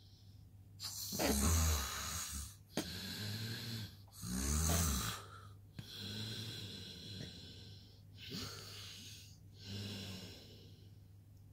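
A man snoring in his sleep: a series of about six loud, breathy snores, some with a low buzzing rattle, each lasting a second or two.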